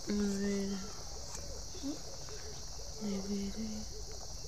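Crickets chirring steadily in the night air. A short low steady tone cuts in twice, near the start and again about three seconds in.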